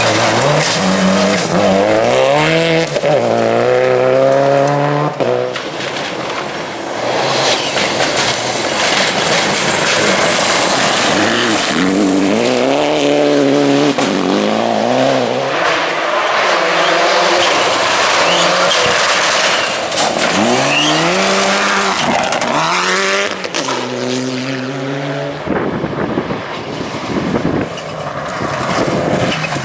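Classic rally cars driven hard on a special stage. Engines rev up through the gears in repeated rising sweeps, with the pitch dropping at each shift, over steady tyre and road noise. Near the end the engine note fades and the tyre and road noise takes over.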